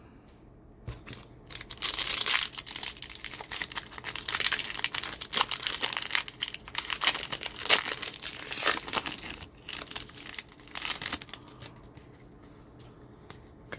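A trading-card pack's wrapper being torn open and crinkled, in irregular rustling bursts that start about a second in and die down a couple of seconds before the end.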